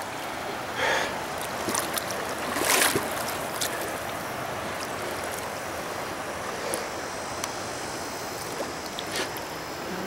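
River water rushing steadily over shallow rocky rapids, with a few splashes about a second in, near three seconds and near the end.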